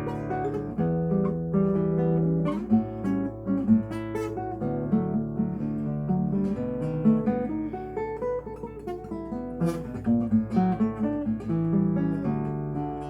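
Solo classical guitar played fingerstyle: a plucked melody with many quick notes over ringing bass notes.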